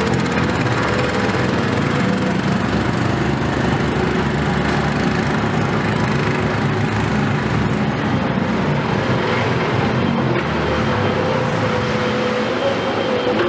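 Komatsu PC210 hydraulic excavator's diesel engine running steadily while it works loading a truck. Its pitch wavers slightly near the end.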